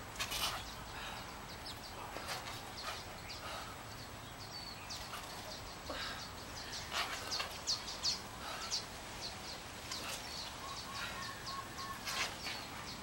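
Birds chirping and calling in many short, quick high notes over a steady outdoor background hiss, with a repeated lower note joining in near the end.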